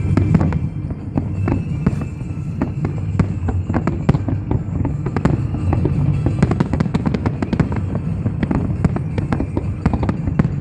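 Fireworks display: a dense, rapid series of bangs and crackles, several a second, over a continuous low rumble.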